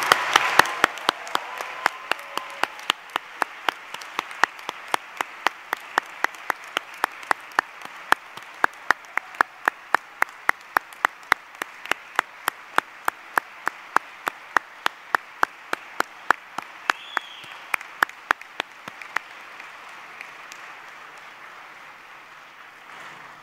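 Audience applauding, with one person's claps standing out louder and sharper at an even pace of about three a second. The applause thins out and dies away near the end.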